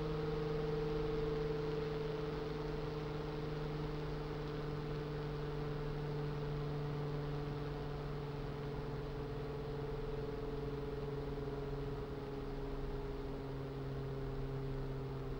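Noctua NF-F12 120 mm PC fan running, a steady whirr with a few humming tones over the airflow hiss. Its pitch slides slowly lower as the fan's speed is turned down.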